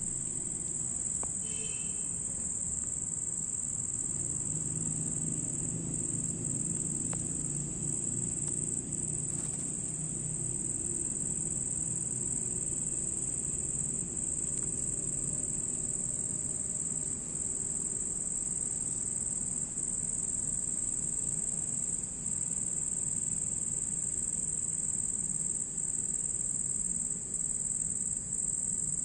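Cricket chirping in one continuous high-pitched trill, steady, with a few momentary breaks.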